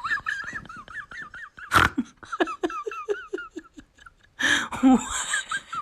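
A person laughing in quick runs of short, high-pitched bursts, with a break about four seconds in before more laughter.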